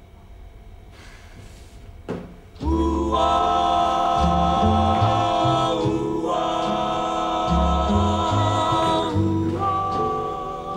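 Quiet room tone with a short knock about two seconds in, then music starts: voices singing held chords over a bass line that changes note every second or so.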